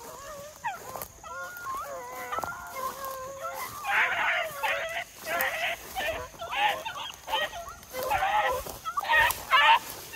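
Pack of beagle hounds baying and barking on a rabbit's scent trail, many voices overlapping. The calls grow louder and thicker from about four seconds in.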